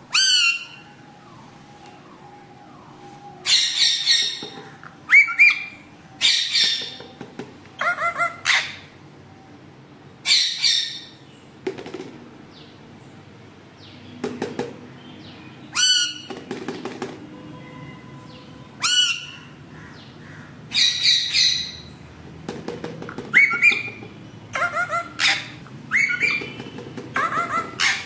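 Rose-ringed (Indian ringneck) parakeet giving about fifteen loud, high, short calls, some single and some in quick pairs or runs.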